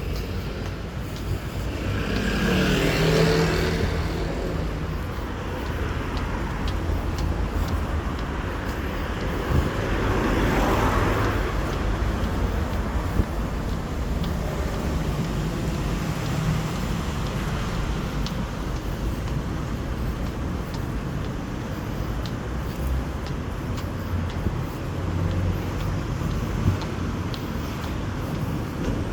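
Road traffic outdoors: a steady low rumble with two vehicles passing, one a few seconds in and another about ten seconds in, each swelling and fading.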